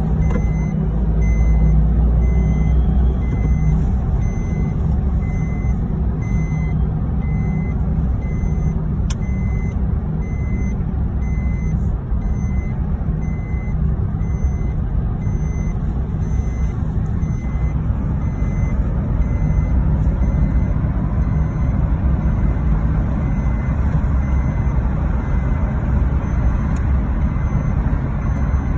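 Car cabin noise while driving through a road tunnel: a steady low rumble of engine and tyres on the road. A faint high beep repeats at an even pace.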